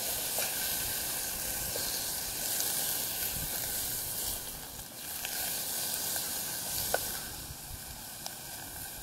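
Food frying in a pan with a steady high sizzle, and a few small sharp crackles, the loudest about seven seconds in.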